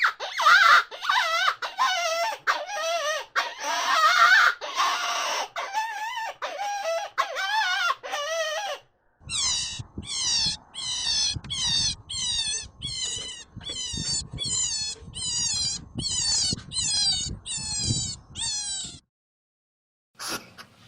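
Animal calls. First comes a run of loud, wavering, whining cries. After a short break there is a steady series of short calls, each falling steeply in pitch, about one and a half a second.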